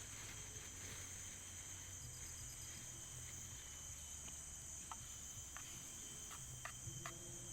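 Steady high-pitched chorus of insects in tropical forest, with one thin continuous whine above it. A few faint clicks come in the second half.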